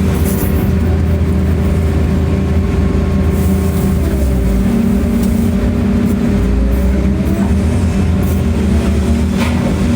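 Excavator's diesel engine running steadily, with a faint rising whine about seven seconds in and a brief scrape near the end.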